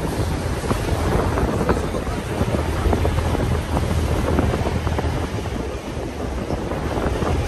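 Wind buffeting the microphone over a steady, low engine hum.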